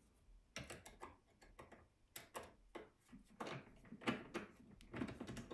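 Hand hex driver tightening the bolts that fasten a linear rail to an aluminium extrusion: a run of faint, irregular metal clicks and ticks.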